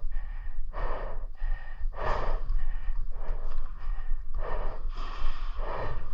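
Heavy breathing close to the microphone: a man breathing hard in and out, about one breath every half second to a second.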